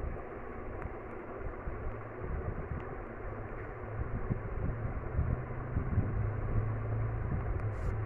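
Steady background noise with a low hum, the hum growing stronger about halfway through; no distinct bird calls stand out.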